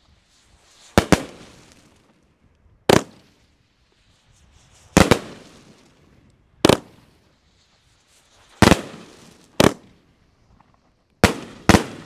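Multi-shot consumer firework cake (Red Apple "Wasabi") firing: about ten sharp bangs at uneven intervals, some coming in quick pairs, each trailing off with a short rumble.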